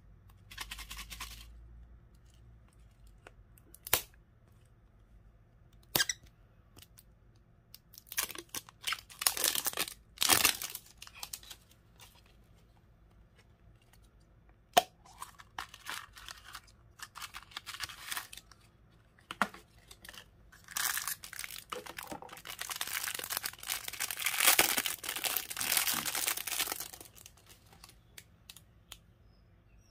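Hard plastic clicking and snapping as a Hello Kitty head-shaped plastic surprise case is twisted apart, with bursts of crinkling and tearing as the toy inside is unwrapped. The longest stretch of crinkling comes in the last third.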